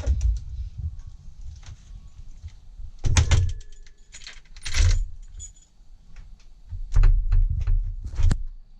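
Metal clicks, clunks and knocks of a door lock and its bolt being worked against steel doors, with keys rattling. Heavier thumps come about three seconds in, about five seconds in, and several near the end.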